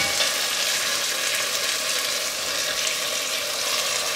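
Sliced onions, with a whole red chili and green olives, gently frying in peanut oil: a steady, even sizzle.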